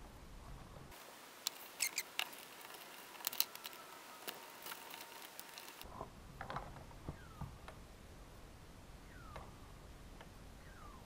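Faint clicks of small parts and short, high, falling squeaks of a chainsaw's rubber intake boot being worked and shoved into place on a Husqvarna T435.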